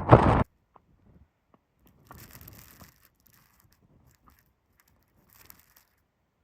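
Strong wind buffeting the microphone, cutting off abruptly about half a second in; then near silence with a faint, brief rustle about two seconds in.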